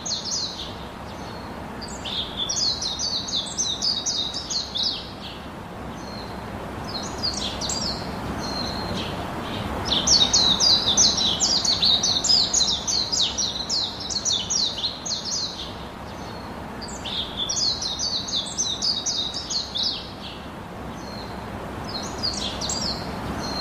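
Small birds chirping in bouts of fast, high notes a few seconds long, with short pauses between, over a steady background hiss.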